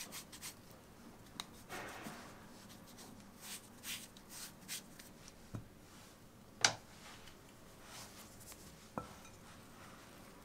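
Spatula and hands scraping, rubbing and crumbling a dry flour mixture in a glass bowl, with scattered light ticks and a few sharp clicks against the glass, the sharpest about two-thirds of the way through.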